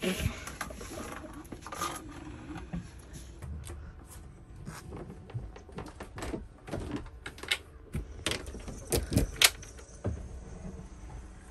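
Scattered knocks, clicks and rattles of handling as a plastic bucket holding a live spiny lobster is carried into a boat's galley and the top-loading fridge is opened. The loudest knocks come about nine seconds in.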